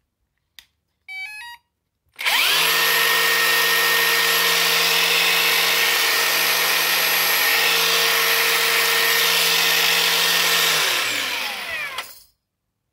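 A Parkside Performance brushless cordless angle grinder, running on a replacement sensorless motor control board, is switched on. A click is followed by a short run of stepped startup beeps from the new controller. The motor then spins up quickly, runs steady and loud with no disc fitted for about eight seconds, and winds down in pitch as it is switched off and coasts to a stop.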